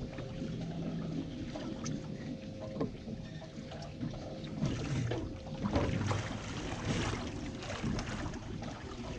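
Water slapping against the hull of a fishing boat on the open sea, with a faint steady hum under it and scattered small knocks, louder for a couple of seconds around the middle.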